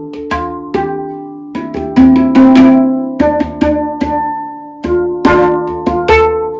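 Handpan played by hand: quick clusters of struck notes, each ringing on as a set of clear sustained tones, with brief lulls between phrases.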